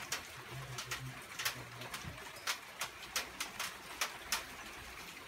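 Rainwater dripping onto a hard surface in irregular sharp ticks, two or three a second, over a steady soft hiss of rain.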